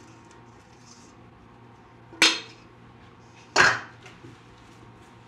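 Two sharp metallic clanks from a stainless steel mixing bowl, about a second and a half apart, each with a short ring.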